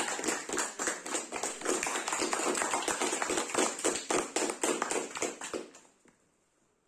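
Applause from a small audience, many separate hand claps, dying away about six seconds in.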